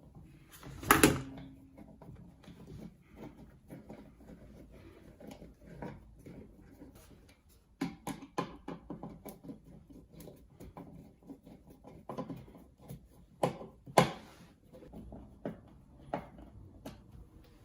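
Scattered clicks, taps and knocks of a GFCI outlet being handled, pushed into its wall box and screwed in by hand, with louder knocks about a second in and again near 14 seconds.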